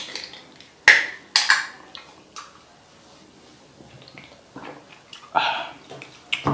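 Close-miked mouth and drinking noises from a person eating spicy food: a few short, sharp mouth and breath sounds in the first second and a half, then swallowing from a drink can about five seconds in, while the chili heat is strong.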